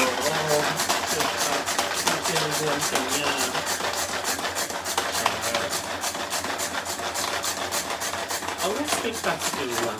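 Pull-string manual food chopper being yanked again and again to mince garlic cloves, its blades spinning with a rapid run of clicks and a whirring rasp.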